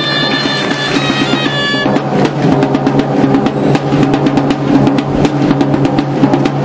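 Bagpipe and drum music. A steady bagpipe drone runs under a piped melody that stops about two seconds in, leaving quick drumming over the drone.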